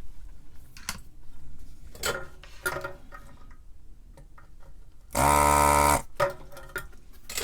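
Small clicks and taps of tools on a circuit board, then, about five seconds in, the vacuum pump of a desoldering gun buzzing for just under a second as it sucks molten solder out of a through-hole.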